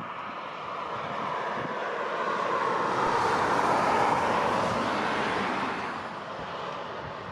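Airbus A330-200 twin jet engines running as the airliner taxis, a rushing whine that swells to its loudest about four seconds in and then eases off.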